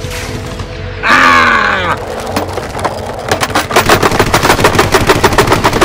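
Rapid automatic gunfire sound effect, a fast even string of shots at about ten a second, starting about three seconds in. Before it, about a second in, a loud sound lasting about a second slides down in pitch.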